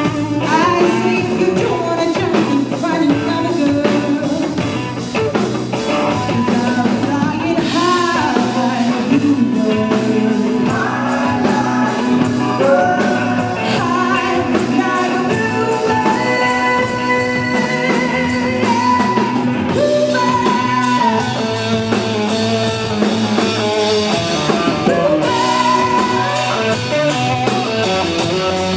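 Rock band playing a blues-rock song: a singer over electric guitar and drums, at a steady loud level throughout.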